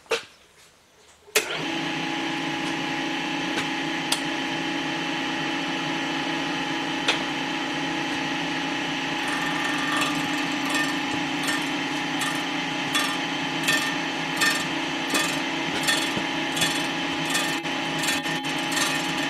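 Storm Vulcan Blockmaster 85B resurfacing machine starting up about a second and a half in, then running steadily with its rotating cutter head. About halfway through, a light regular ticking, a little faster than once a second, joins it as the cutter takes a very light first skim across the cast-iron Willys F134 block deck.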